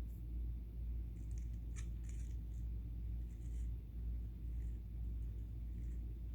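Knife cutting into a bar of soap: short, high crackles in small clusters from about a second in to around three and a half seconds, with a few fainter ones later, over a steady low hum.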